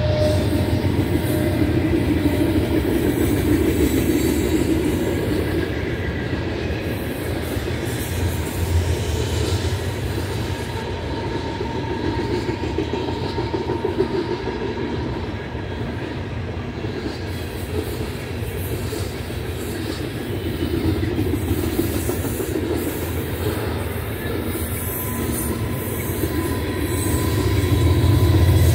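Freight cars of a long Union Pacific manifest train rolling past: a steady rumble and clatter of steel wheels over the rail joints, with a faint high wheel squeal coming and going.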